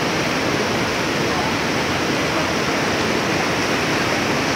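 Fast-flowing floodwater of a river in spate, rushing past in a steady, unbroken noise.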